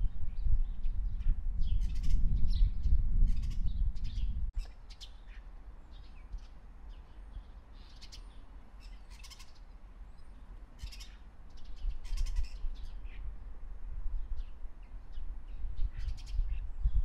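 Birds chirping with many short, separate high calls over a low rumble. The rumble stops abruptly about four and a half seconds in and builds back gradually in the second half.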